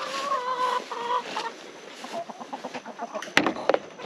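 Chickens clucking, with drawn-out pitched calls over the first second and a half. Near the end come a few sharp knocks as the garden hose is set into the coop's plastic rain gutter.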